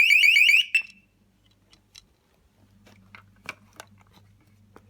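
Battery-powered motion-sensor alarm sounding its loud electronic siren, a fast warble of about eight rising chirps a second, triggered by someone walking past. It cuts off just over half a second in, followed by one short beep and then a few faint clicks.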